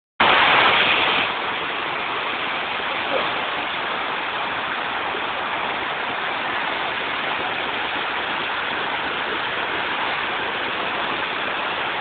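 Water of a rocky cascade waterfall rushing and splashing over rocks, a steady roar that is a little louder for about the first second.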